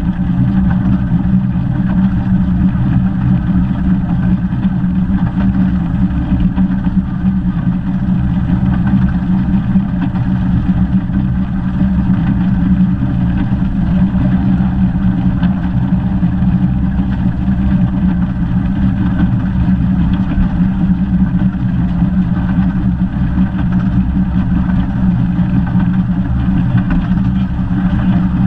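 The 15-inch-gauge steam locomotive 'Northern Rock' running along the line, heard from its cab side: a loud, steady rumble with a strong low hum that does not change.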